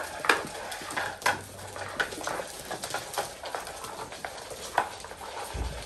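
Labrador puppies scrambling around their feeding bowls and puppy pads: irregular clicks and knocks from bowls and paws on a hard floor over light rustling of the pads, with a low thump near the end.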